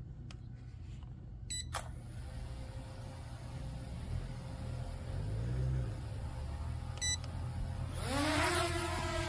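Ferietelf Wing-12 quadcopter drone starting up for takeoff. Two short runs of electronic beeps come early and late, and between them the motors start with a click and idle with a faint steady whine. Near the end the motors spool up into a loud rising whine that levels off as it lifts, over a steady low rumble.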